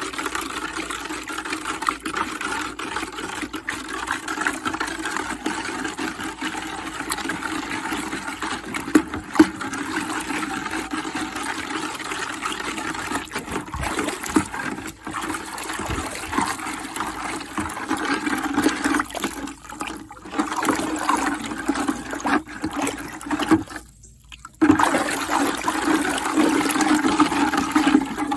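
Sugar water churning and sloshing in a plastic bucket as it is stirred with a length of pipe to dissolve the sugar, a steady rushing swish with one brief break a little before the end.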